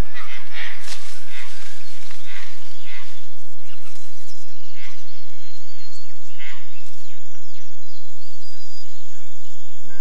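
Wild animal calls in a tropical forest: short calls repeated about once a second over a steady high background.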